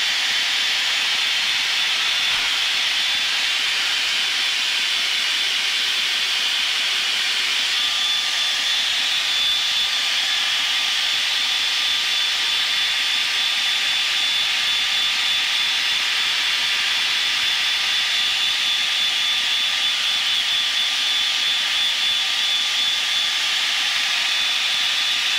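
Steady in-cockpit noise of a Blue Angels F/A-18 jet landing and rolling out on the runway: a continuous hiss with a high steady whine. A second, lower whine joins about eight seconds in.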